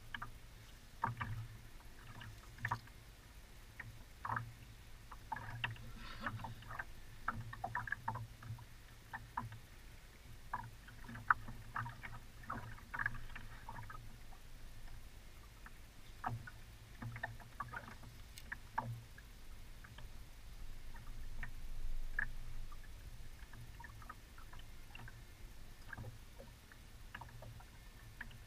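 Choppy lake water lapping and slapping against the hull of a small metal boat, making many irregular short knocks and splashes over a steady low rumble.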